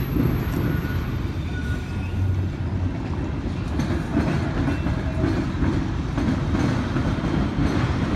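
Freight train of enclosed autorack cars rolling past, a steady low rumble of railcar wheels on the track.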